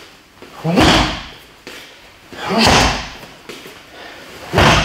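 Three dull thuds about two seconds apart as repeated upward kicks are thrown in a training hall.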